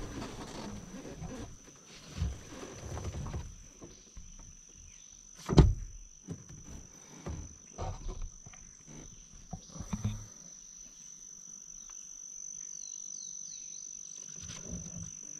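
Insects droning outdoors with one steady, high, even note. Over it, during the first ten seconds, come scattered knocks and rustles, the loudest a sharp thump about five and a half seconds in.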